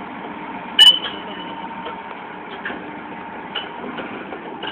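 Heavy machinery, a Komatsu excavator and bulldozer, running steadily with a constant hum. One short, loud, sharp sound about a second in.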